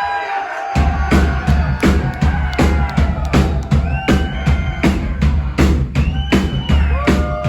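Live rock band playing: a held chord, then about a second in the drums and bass come in together with a steady, heavy beat.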